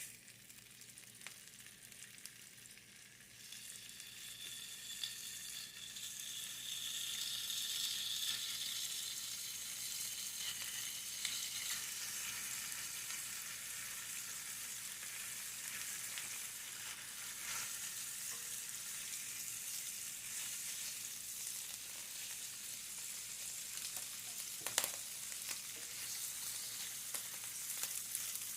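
Food frying in a pan: a steady sizzle that grows louder in the first several seconds and then holds, with a single sharp click or clink near the end.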